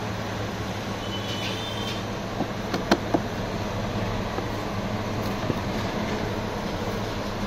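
Steady low hum with a hiss under it, and two sharp clicks close together about three seconds in from the clear plastic gift-box tray being handled.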